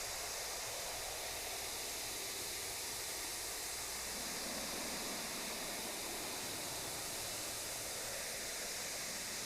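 Steady hiss of static, even and unchanging, with no tones or voice.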